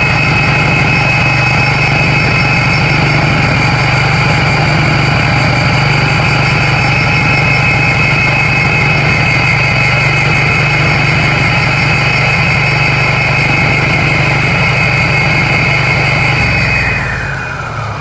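Husqvarna walk-behind concrete saw running with its blade spinning freely in the air, not cutting: a steady engine drone under a high whine. About seventeen seconds in, the whine falls in pitch and the sound drops away as the blade spins down.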